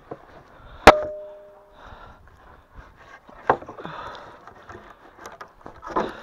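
Sharp wooden knocks a few seconds apart. The loudest, about a second in, rings briefly with a clear tone; another comes midway, and a quick cluster near the end.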